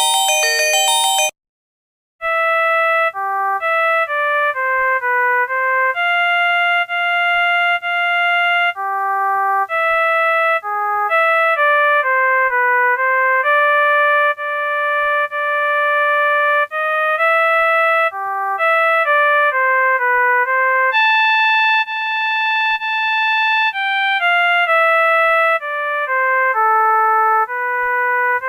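Phone ringtones from a NETZERO 256 4G handset: a bright, chiming ringtone ends about a second in, and after a short gap a synthesized ringtone melody plays, a simple tune of single notes, some quick and some held.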